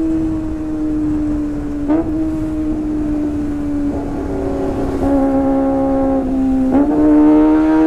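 Kawasaki ZX-25R 250 cc inline-four running at high revs through a Sportisi Motorsport SRX aftermarket exhaust, giving a high-pitched howl. The pitch sags slowly and jumps up suddenly about two seconds in and again near the end.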